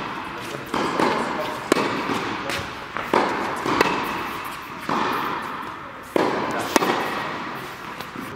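Tennis ball being hit back and forth in a rally: sharp racket strikes and ball bounces about once every second, each echoing through a large indoor tennis hall.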